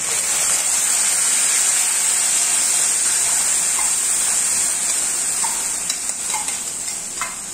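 Wet onion paste hitting hot tempering oil in a nonstick kadhai: a loud sizzle that starts all at once and slowly dies down. A few light metal clicks come in the second half.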